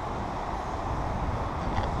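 Wind rumbling and buffeting on the microphone: a steady low noise with no clear tones.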